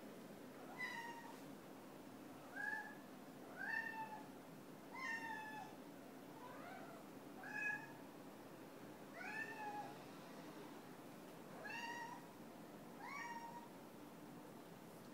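A cat meowing over and over: about nine short meows spaced a second or two apart, each rising then falling in pitch.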